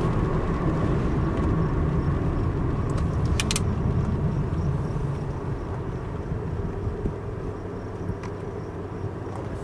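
Steady low engine and road rumble inside a slowly moving car's cabin, easing a little about halfway through, with a few faint clicks about a third of the way in.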